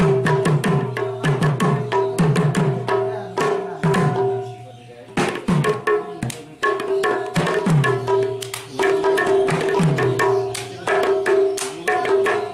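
Two Manipuri pung barrel drums played by hand in a fast rhythm: sharp ringing strokes on the treble head and bass strokes that swoop down in pitch. The playing thins out briefly around four seconds in and picks up again about a second later.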